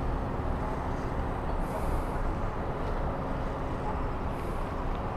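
Gasoline flowing from a pump nozzle into a motorcycle's fuel tank: a steady rushing noise.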